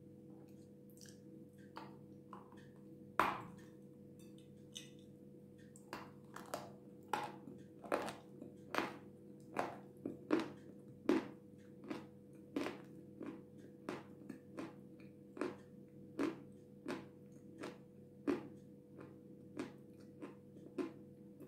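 Dry chunks of jasmine edible clay being bitten and chewed, crisp crunching. There is one loud bite about three seconds in, then crunches at a steady pace of about three every two seconds. A low steady hum runs underneath.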